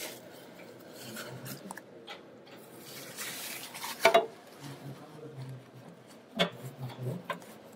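Paper tissue rubbing and wiping against the metal measuring bob of a Lorrca analyser. There is a sharp knock about four seconds in, and a smaller one a couple of seconds later.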